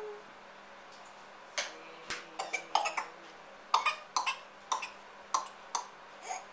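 A young child coughing hard and repeatedly in a coughing fit, a long string of short, sharp coughs in quick clusters starting about a second and a half in.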